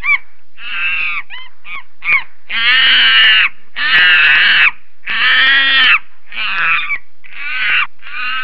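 Cartoon sheep character's voice hiccuping: a few short, sharp hiccup calls, then three long wavering animal-like cries of about a second each, then several shorter ones.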